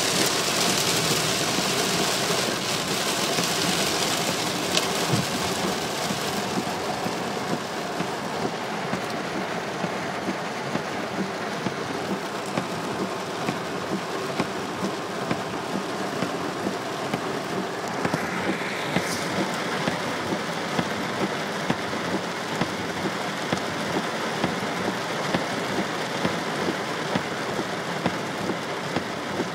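Torrential rain falling hard on a car's roof and windshield, heard from inside the car as a steady dense hiss with frequent small taps.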